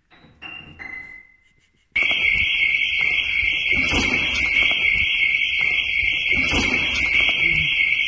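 A building's intruder alarm, set off by a motion detector, starts abruptly about two seconds in and sounds continuously at a loud, high pitch. A couple of short tones come just before it, and low thumps of movement sound underneath.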